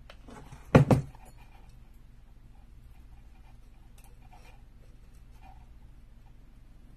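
A sharp double thump about a second in, as of something knocked or set down hard. After it come faint rustling and light ticks of glitter ribbon being handled.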